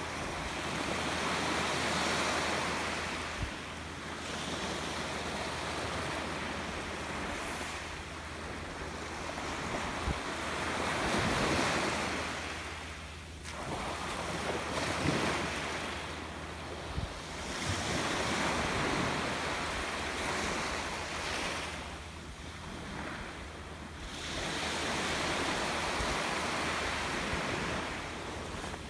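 Small waves breaking and washing up a sand-and-pebble beach, the surf swelling and fading in slow surges every four to five seconds.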